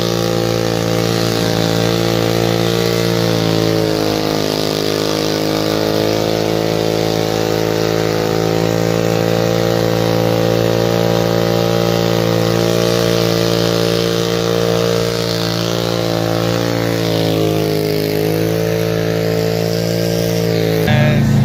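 A car's engine held at high, steady revs through a long burnout, its rear tyres spinning on the asphalt; the pitch wavers slightly a couple of times.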